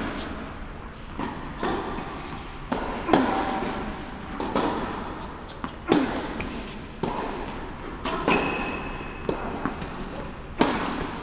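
Tennis rally on an indoor hard court: rackets striking the ball and the ball bouncing, a sharp hit about every second, each echoing in the large hall.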